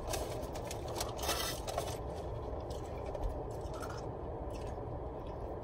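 A few faint scrapes and rustles from handling food while eating, mostly in the first two seconds, over a steady low hum of a car cabin.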